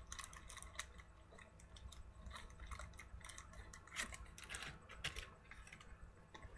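Faint, irregular light clicks and taps from small objects being handled, with a few sharper clicks about four to five seconds in.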